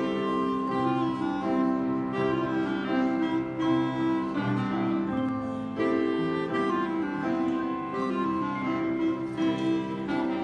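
Handbell choir playing a piece: many sustained bell notes ring and overlap, with new notes struck every second or so.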